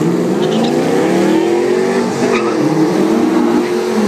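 Two Chevrolet Camaro SS V8s accelerating hard away down a drag strip. The engine note climbs steadily in pitch, drops at a gear change about two seconds in, then climbs again.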